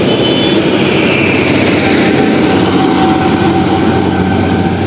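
Steady heavy-vehicle engine rumble from a fuel tanker truck running along the road.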